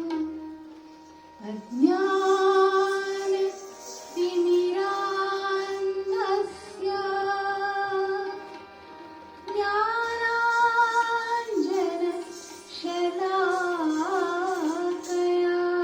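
A woman singing long, held notes in phrases with pauses between them, in an Indian classical style, over a steady drone; one phrase near the end wavers in quick ornaments.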